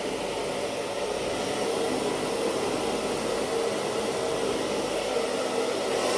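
Handheld electric hair dryer running steadily, a continuous blowing whoosh with a faint steady hum.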